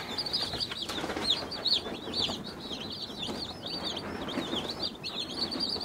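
A brood of day-old Meat King broiler chicks (Cornish cross) peeping nonstop, many short high peeps overlapping.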